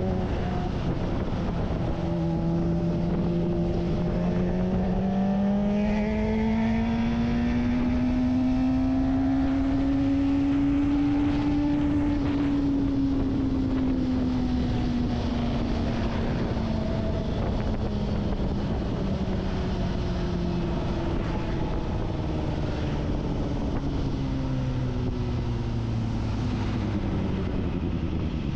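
Kawasaki Ninja ZX-25R's 250 cc inline-four engine under way, its note climbing smoothly for about ten seconds, then falling slowly away and dropping a step near the end. A steady wind rush runs underneath.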